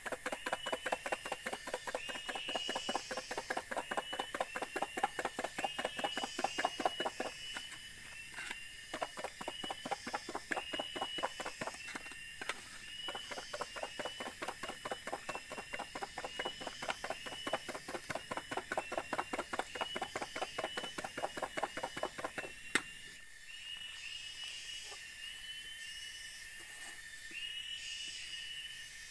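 A sponge scrubbing a small camping cooking pot in quick rhythmic strokes, several a second, stopping with a click about 23 seconds in. A repeated high chirping carries on in the background.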